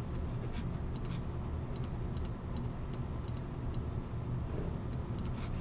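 About a dozen light computer mouse clicks, spaced unevenly and some in quick pairs, over a steady low hum.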